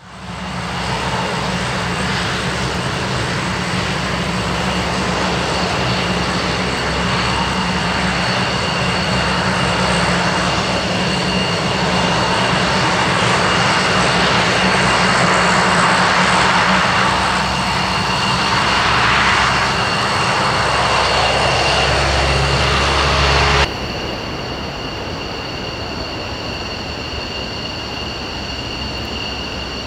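F-15C fighter's twin jet engines running at taxi power: a steady rushing roar with two high whining tones. The sound drops suddenly to a quieter level about three-quarters of the way through, where the whine carries on more softly.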